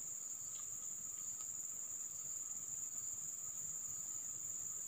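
Steady chorus of insects: one continuous shrill high note, with a fainter lower steady note beneath it.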